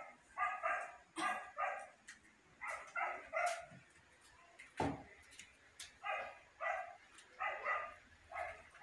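A small dog barking repeatedly in quick bursts of two or three high yaps. There is one sharp knock about halfway through.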